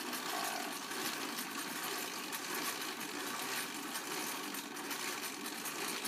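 Exercise bike being pedalled, its wheel spinning a homemade ceiling-fan permanent-magnet alternator pressed against it by the tensioner: a steady, fast mechanical whir.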